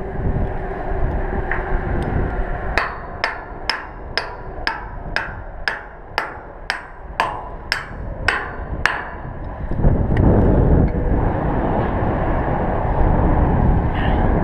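A hammer striking steel tower hardware: about a dozen sharp, ringing blows at roughly two a second, starting about three seconds in and stopping about three seconds later. Wind buffets the microphone throughout, heaviest near the end.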